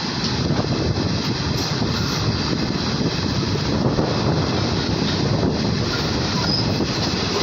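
Running noise of an ICF passenger coach's wheels and bogies on the track: a steady rumble of steel wheels on rails.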